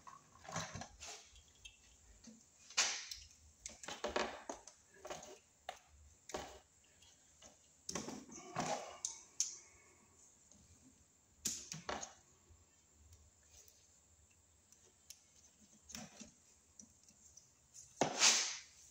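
Irregular clicks, scrapes and rustles of hand work on electrical cable: a tool working at the sheathing and the wires being handled as they are stripped and pulled apart.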